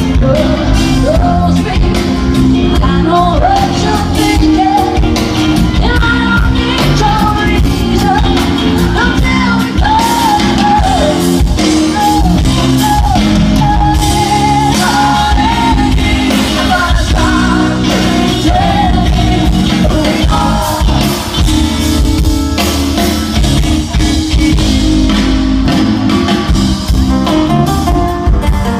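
Rock band playing live, with a woman singing the lead vocal over the band.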